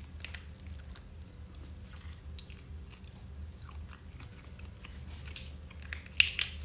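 Boiled crawfish shells crackling and clicking close to the microphone as they are twisted and peeled apart by gloved hands, with a louder burst of cracks about six seconds in.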